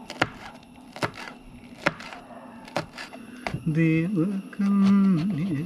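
Knife chopping green chillies on a plastic cutting board: a few sharp taps, roughly one a second. From about halfway a person's voice with a wavering pitch comes in and becomes the loudest sound.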